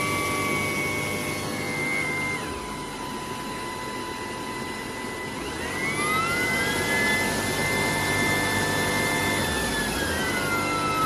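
Cordless stick vacuum motor running with a steady whine over the rush of air. The whine drops in pitch about two seconds in, rises to a higher, louder whine around six seconds, and falls back near the end, as the vacuum shifts between suction power levels.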